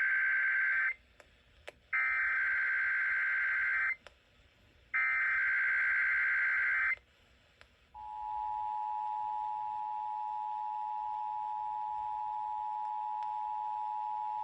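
Emergency Alert System SAME header: three bursts of warbling digital data tones about two seconds each, the first already under way. About eight seconds in comes the steady two-tone EAS attention signal (853 and 960 Hz together), which holds to the end.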